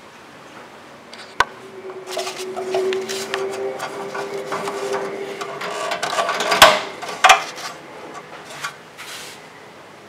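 Plastic defrost drain tube of a side-by-side refrigerator being handled and pushed into its clip at the bottom of the cabinet: a sharp click a little over a second in, a few seconds of rubbing and scraping, then two loud snaps close together as the tube seats in the clip.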